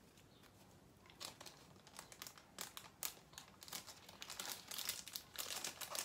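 Clear plastic packaging crinkling and rustling as it is handled, starting about a second in and getting busier toward the end.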